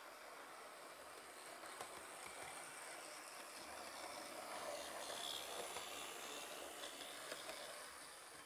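Bachmann Class 20 model diesel locomotive running along the track: a faint motor hum and wheel-on-rail rumble that grows as it approaches and passes, then fades away, with a few light clicks from the wheels. It is running smoothly.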